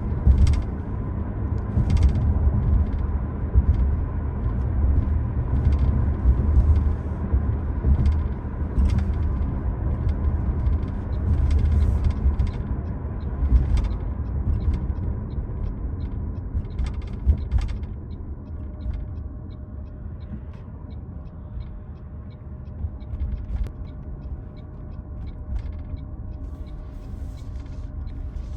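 Road noise of a 2025 Toyota Prius Limited while driving, heard inside the cabin: a steady low rumble with occasional irregular knocks from bumps in the road. It gets quieter about two-thirds of the way through.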